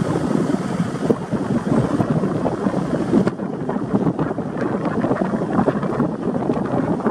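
Wind buffeting the microphone: a loud, steady, gusting rush of noise with no calls from the dogs standing out.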